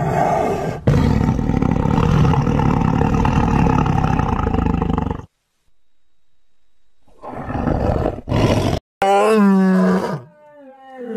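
A tiger growls and roars, loud and rough, for about five seconds before breaking off suddenly. After a pause there are two short grunts, then a lion starts roaring near the end with long, moaning calls that carry a clear pitch.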